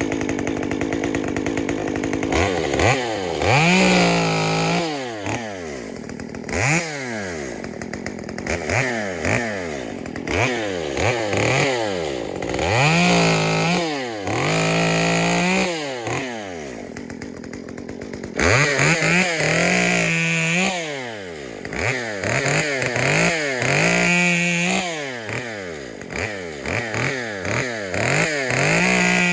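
Stihl MS 194T top-handle two-stroke chainsaw, fitted with a 1/4-inch Ripsaw conversion chain, idling for about two seconds and then revved up and down over and over. Some blips are short, and others are held briefly at full throttle before dropping back.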